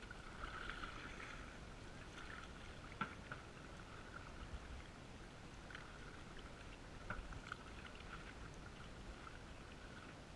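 Canoe paddling, muffled by a waterproof camera housing: faint paddle splashes and knocks at uneven intervals over a steady thin hiss.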